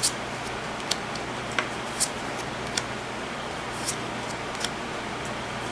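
Trading cards being thumbed through one by one: a short, light tick every half second to a second as each card is slid off the stack, over a steady hiss and faint hum.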